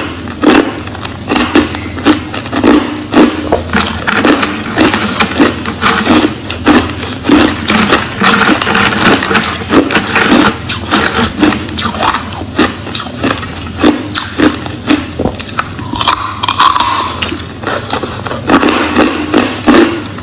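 Crushed clear ice, coloured with green powder, being chewed close to the microphone: a dense, irregular run of loud crunches, several a second.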